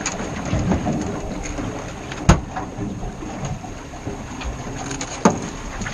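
Steady wind and water noise aboard a small fishing boat out at sea, with two sharp knocks, one about two seconds in and another near the end.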